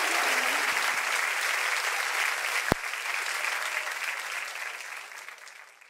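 Audience applauding, with one sharp knock about two and a half seconds in; the applause fades away toward the end.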